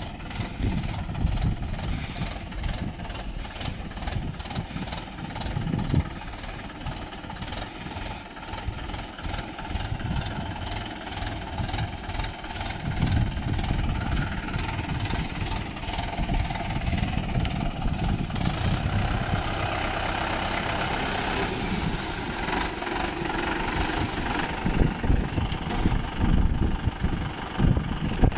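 Swaraj farm tractor diesel engines running, the level rising and falling. A regular high clicking about twice a second runs through the first two-thirds and then stops.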